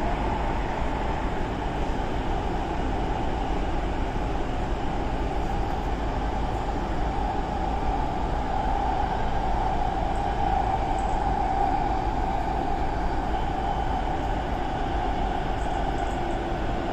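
Kaohsiung MRT train running, heard from inside the carriage: a steady rumble with a strong mid-range hum, a little louder about halfway through.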